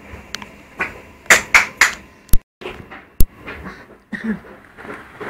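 Fireworks going off: a quick run of three bangs, then two sharp cracks about a second apart, with smaller pops around them.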